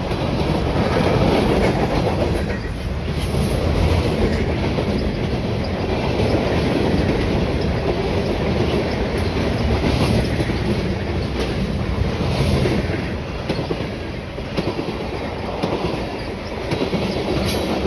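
Freight cars of a CSX manifest train rolling past in a steady loud rumble, with wheels clicking now and then over rail joints.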